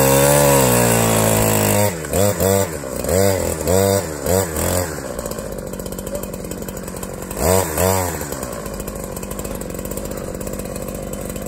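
Two-stroke chainsaw at full throttle in a cut, its pitch sinking as the bar is pinched in the closing kerf; then a string of short throttle revs, two more about eight seconds in, and a steady idle. The saw is getting stuck in the trunk.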